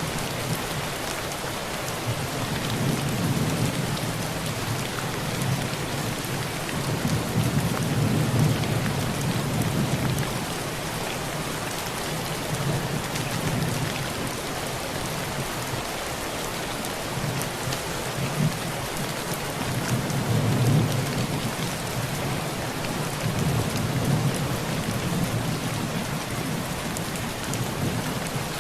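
Heavy rain falling steadily on a tin roof, with thunder rolling low in the background. The rumbles swell and fade several times, the strongest about twenty seconds in.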